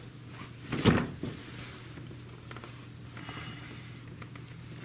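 Hand work among the hoses and cables of an ATV: a single clunk about a second in, then faint rustling and small clicks, over a steady low hum.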